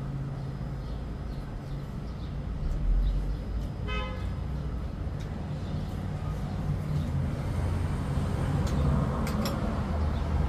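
Street traffic rumbling, with one short car horn toot about four seconds in. The traffic swells louder near the end, as of a vehicle passing, and there are a few faint clicks.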